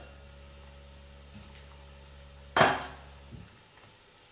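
A metal pot lid clanks once against a pan about two and a half seconds in and rings briefly, after a faint knock. A steady low hum in the background cuts off shortly after the clank.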